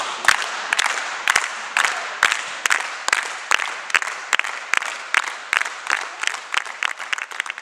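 Group of people clapping in unison, about two claps a second, the rhythm quickening in the last couple of seconds, as build-up clapping before a penalty kick.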